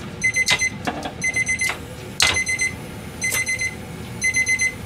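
Electronic kitchen timer going off: a half-second string of rapid high beeps repeating about once a second, signalling that the 10-minute penne boil is done. A few sharp clinks of pans being handled cut in between the beeps.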